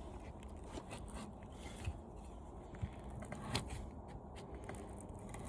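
A few short scrapes and clicks of a blade's back working through the thin aluminum fins of an air conditioner condenser coil, over a steady low background rumble.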